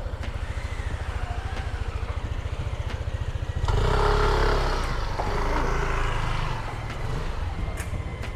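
A vehicle engine running with a steady low pulsing rumble. About three and a half seconds in, a louder engine sound with a held pitch comes in and fades away over the next few seconds.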